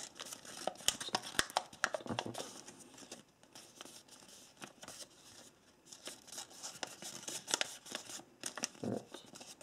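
A sheet of printer paper being folded and pressed flat by hand: crisp crinkles and crackles as the folded paper is pulled open and flattened into a square, thinning out for a couple of seconds in the middle.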